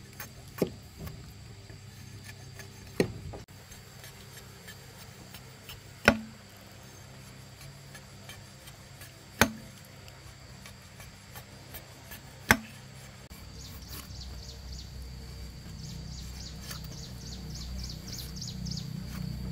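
Hard blows of a tool on wood, five strikes about three seconds apart. Near the end a low rumble rises and a fast run of faint ticking comes in.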